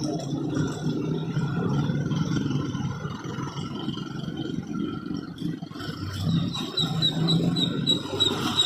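Road traffic running past, a steady low rumble of vehicles. From about six seconds in, a quick high pinging repeats about four times a second.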